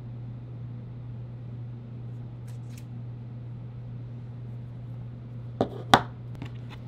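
Two sharp taps about a third of a second apart, followed by a couple of lighter clicks, as a small white plastic USB-C power adapter is set down on a tabletop. A steady low hum runs underneath, with faint handling clicks earlier on.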